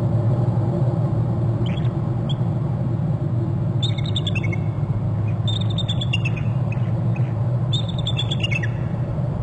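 Bald eagle giving its high, chittering call: a quick series of piping notes that falls in pitch, three times about two seconds apart, with fainter notes about two seconds in. A steady low hum runs underneath.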